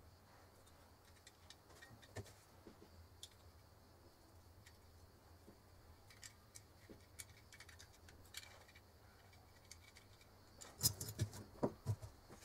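Faint small clicks and metallic taps as a flat cotton wick is fed into a brass oil-lamp burner by hand, then a quick run of louder knocks near the end as the lamp's glass and metal parts are handled on the table.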